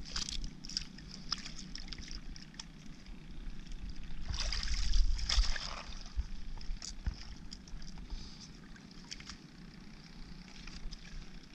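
Shallow seawater sloshing and lapping around a person wading beside a floating mat, with scattered small clicks. The water is loudest from about four to six seconds in.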